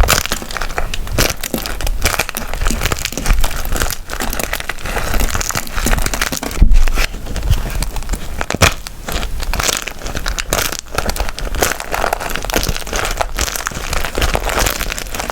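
Wax being squished and crushed in the hands close to the microphone: a dense, continuous crackling and crinkling made of many small sharp clicks, with a louder snap about halfway through.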